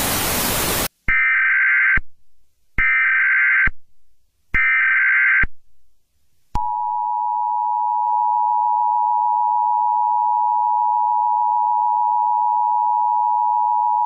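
A short burst of TV static, then three Emergency Alert System SAME header data bursts, each a harsh buzzy chirp under a second long. About six and a half seconds in, the EAS two-tone attention signal (853 and 960 Hz together) starts and holds steady, announcing an emergency message.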